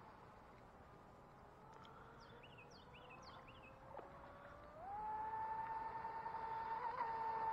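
Whine of a distant RC boat's motor, a steady tone that about five seconds in jumps up in pitch and grows louder as the throttle opens. A bird chirps a few times early on.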